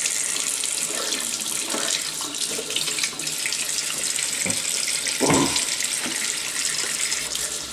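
Tap water running in a steady stream onto a stripped die-cast toy car body in a stainless steel sink, rinsing off paint stripper, with one short knock about five seconds in.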